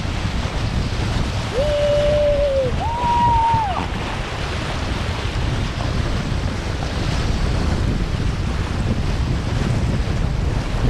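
Horses wading through shallow seawater, water splashing and churning around their legs, under steady wind buffeting on the microphone. Two short held tones sound about two and three seconds in, the second higher.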